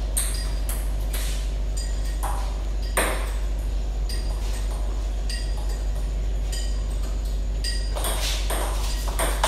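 Table tennis ball being hit back and forth with DHS Hurricane King III rackets and bouncing on the table in a rally: a quick series of sharp clicks, with a louder hit about three seconds in.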